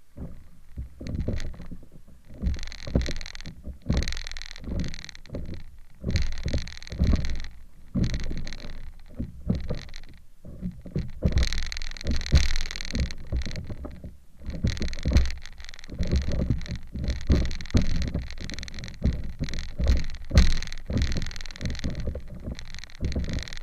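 Small waves slapping and splashing against the nose of a stand-up paddleboard as it is paddled through choppy water: an uneven run of low thumps with bursts of splashy hiss.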